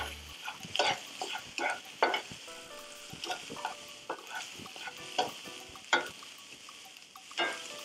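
Diced vegetables, red onion and carrot, sizzling as they sauté in a frying pan while a slotted spatula stirs them, scraping across the pan in a dozen or so quick strokes.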